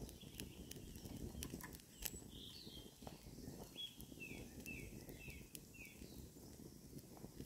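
Small birds singing, with a run of short chirps from about two and a half to six seconds in. Under it are sharp, irregular crackles from the wood fire in a small stove, and a low steady rumble.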